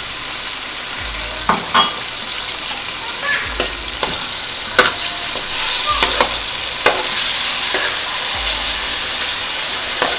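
Raw chicken pieces sizzling as they fry in hot oil in a wok, while a slotted spatula stirs them, clicking and scraping against the pan a number of times.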